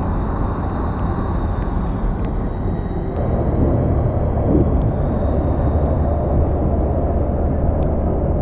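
Sea-Doo personal watercraft engine running on the water, a steady mechanical drone that grows louder from about three seconds in.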